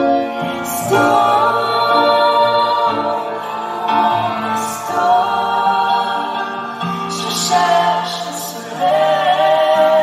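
Live pop music in a concert arena: singing into a microphone over a steady accompaniment, loud through the sound system.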